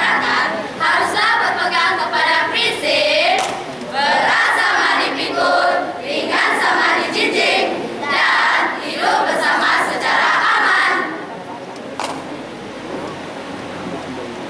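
A large group of school students reciting together in unison in Malay, a rhythmic choral-speaking chant with some sung passages. The group voices drop away to a much quieter level about eleven seconds in.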